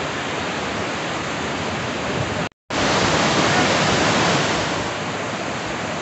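Waterfall water rushing over rocks, a steady loud hiss of falling water. It cuts out for an instant about two and a half seconds in, then comes back louder for a couple of seconds before settling.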